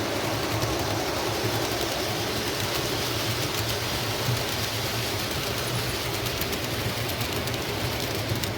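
O gauge MTH model diesel locomotive running, its Protosound speaker playing a steady diesel engine hum over the noise of wheels rolling on the track, with a few light clicks near the end.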